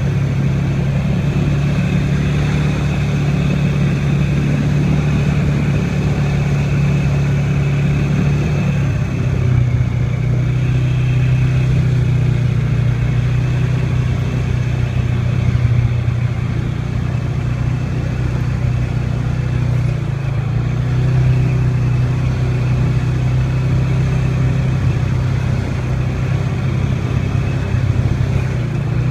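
ATV engine running steadily while riding a dirt trail. Its note drops to a lower pitch about nine seconds in and holds there, with small rises and falls in loudness.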